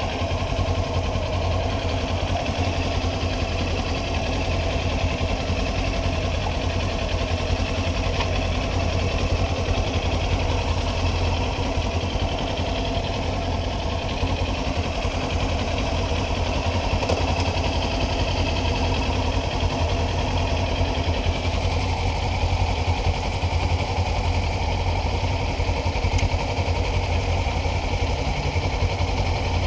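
Motorcycle engine idling steadily, with no revving.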